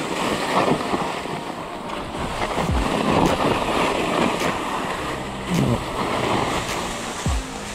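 Skis scraping and hissing through turns on spring snow, the noise swelling with each turn, with wind buffeting the microphone.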